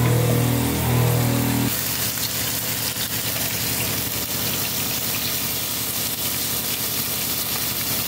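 Steady sizzling and crackling of bacon frying in a pan. Before that, a low pitched melody stops abruptly a little under two seconds in.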